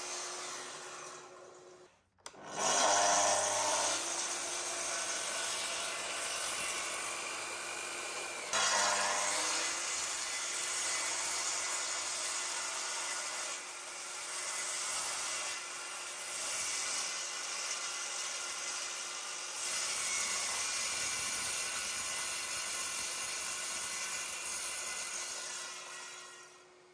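Spindle moulder fitted with two saw blades running and cutting tenon cheeks in oak, a steady sawing sound. It drops out briefly about two seconds in and comes back loud, gets louder again at about eight and a half seconds, and fades away near the end.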